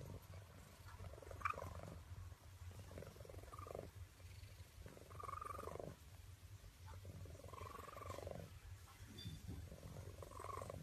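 Domestic cat purring steadily, the rumble swelling and easing with its breathing about every two and a half seconds.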